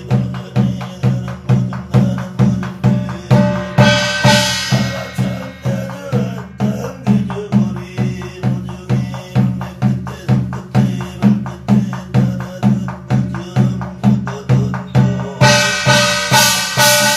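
Korean barrel drum (buk) beaten with a stick in a steady, even beat of about two strokes a second, the rhythm of shamanic sutra reading (gyeong). A brighter ringing sound joins the beat about four seconds in and again near the end.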